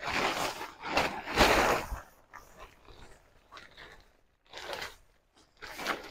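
Crinkling and rustling in irregular bursts, dense and loudest in the first two seconds, then in a few shorter bursts near the end.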